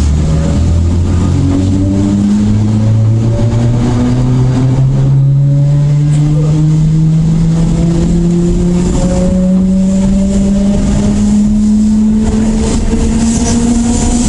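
CPTM Série 4400 electric train's traction motors roaring loudly, a deep hum that rises steadily in pitch as the train accelerates.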